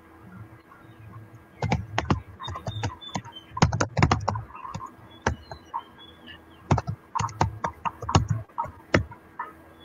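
Typing on a computer keyboard: uneven bursts of key clicks with short pauses between them.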